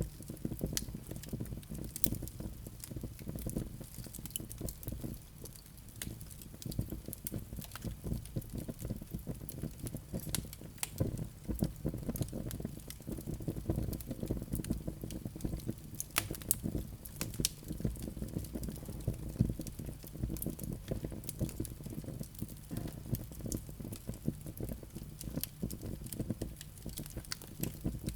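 Wood fire burning: a steady low rumble of the flames with frequent sharp crackles and pops.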